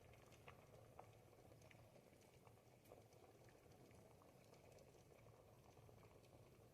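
Pot of ribollita, a thick Tuscan bread-and-vegetable soup, bubbling on the heat: faint, irregular little pops and plops over a low simmer.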